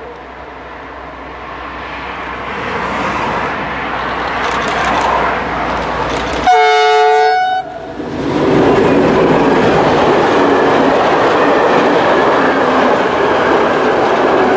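A train approaching and growing louder sounds its horn once, for about a second, then passes close by with a loud, steady rumble of wheels on the rails.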